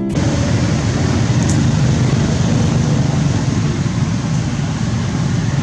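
Loud, steady outdoor background noise, heaviest in the low range, that cuts in abruptly with no distinct events or animal calls standing out.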